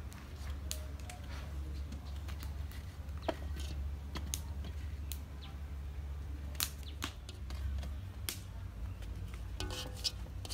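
Scattered sharp clicks and light taps as halved banana blossoms are handled and laid into a large aluminium wok, over a steady low hum.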